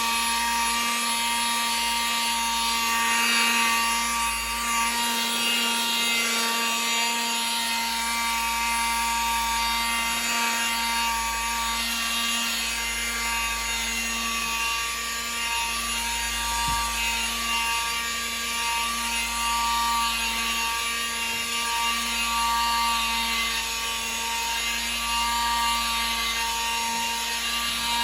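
Battery-powered rotary tool with a foam polishing pad running steadily against windscreen glass. Its motor holds an even whine that dips briefly now and then as the pad grips the glass. The pad is polishing dust and paint overspray off the windscreen.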